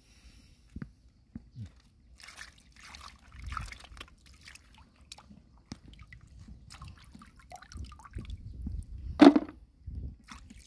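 Wet mud and water squelching and dripping, with scattered small clicks, as hands dig for clams in a muddy lake bed. One louder, sharp sound comes about nine seconds in.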